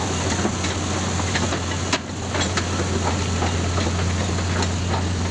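Caterpillar crawler dozer's diesel engine running steadily with a deep, even hum, and a few light sharp clicks scattered through it.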